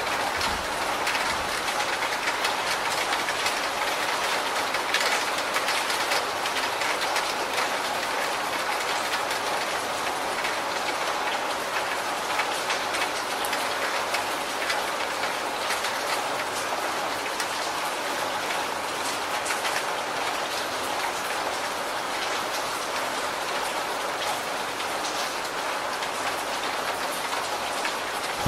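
Steady rain falling and pouring off the edge of a corrugated roof, an even hiss of water with dripping patter.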